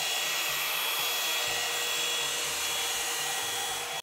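Britânia hot-air brush dryer running steadily: a rush of blown air with a high motor whine over it. It cuts off abruptly at the end.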